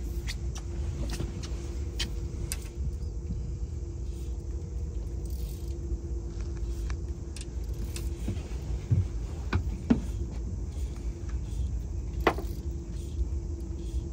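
Boat motor running steadily at idle, a low rumble with a steady hum, with scattered clicks and knocks on board that are loudest around the middle and again near the end.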